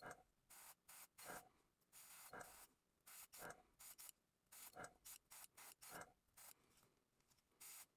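Airbrush spraying paint through a mesh stencil in a string of short, faint hisses, roughly two a second.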